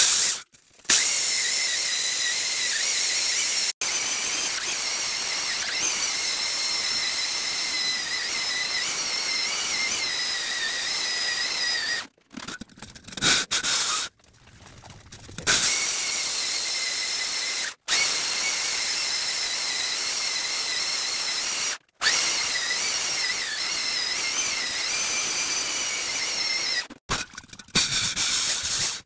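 Handheld electric diamond core drill, water-fed, grinding a hole into a soft rock wall: a steady high whine with a wavering squeal. It breaks off abruptly a few times.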